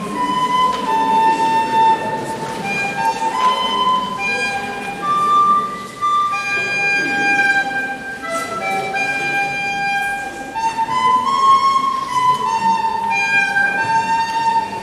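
Children playing a slow melody together on soprano recorders, with held notes that move from one pitch to the next every second or so, over a faint low murmur.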